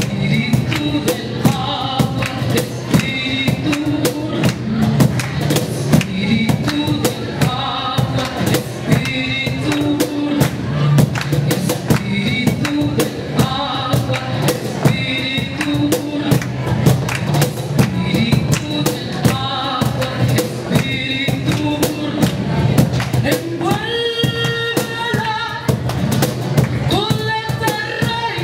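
A woman singing into a microphone, holding long notes, accompanied by a cajón slapped by hand in a steady, busy rhythm.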